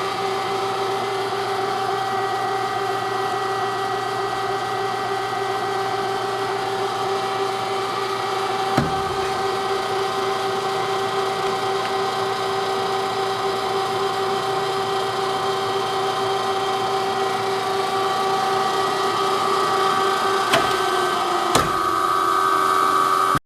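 Kasko GKS 400 AU CNC mitering cold saw running with a steady machine hum made of several fixed tones. Single sharp clicks come about nine seconds in and twice near the end, where the hum's pitch shifts slightly.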